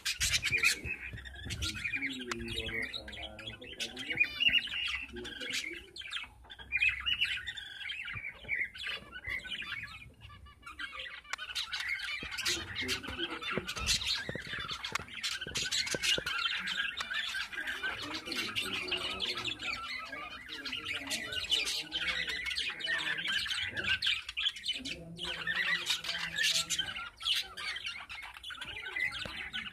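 Budgerigars chattering and squawking almost without pause, a dense run of quick chirps and clicks, easing off briefly about a third of the way in.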